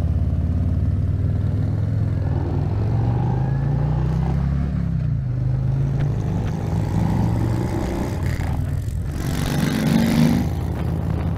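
Harley-Davidson motorcycle V-twin engine running under way. Its note rises as it accelerates for a couple of seconds, drops back about five seconds in, then runs steadily. A rush of wind noise comes near the end.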